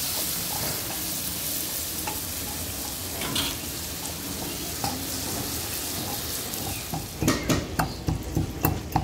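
Chicken pieces sizzling in hot oil in an iron kadai, with a spatula scraping and stirring now and then. About seven seconds in, a quick run of sharp knocks, about three a second, starts: a pestle pounding whole black peppercorns in a metal tumbler.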